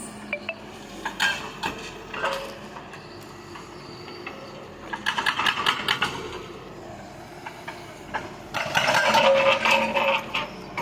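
Excavator at work, giving off irregular metallic clanks and knocks. There are two longer stretches of clattering, one about five seconds in and a louder one near the end.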